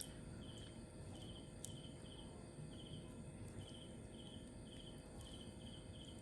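Cricket chirping faintly, short pulsed chirps about twice a second over a low background hiss.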